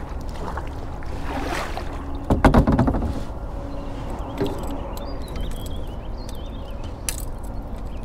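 Kayak paddle dipping into the lake, the loudest splashing strokes about two and a half seconds in, over a steady low wind rumble on the microphone.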